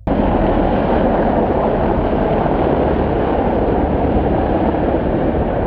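Formation of Mi-28 attack helicopters flying past: a loud, steady rush of rotor and turbine noise that cuts in suddenly at the start.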